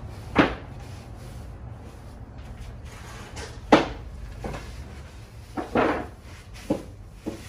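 A pad applicator wiping oil onto wooden wall boards: about seven short, separate strokes, the loudest about halfway through, over a steady low hum.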